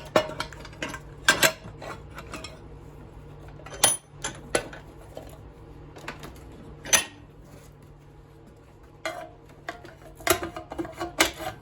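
Irregular metal clinks and scrapes as a hand tool works a stainless steel heating element out of a cast aluminum grill body, with a quiet stretch in the middle and a quick cluster of clinks near the end.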